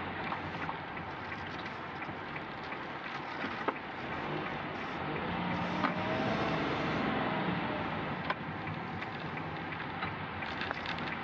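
Road and engine noise of a moving car heard from inside: a steady hiss with scattered small clicks and ticks.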